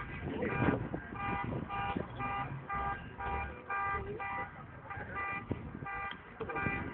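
Musical car horn playing a tune of short, repeated notes, two to three a second, with a few brief pauses between phrases.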